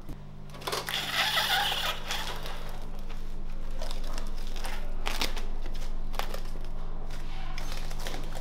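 Plastic cling film being pulled from a wrapping machine and stretched over a glass bowl, crinkling, with a few sharp taps about five and six seconds in. A steady low hum runs underneath.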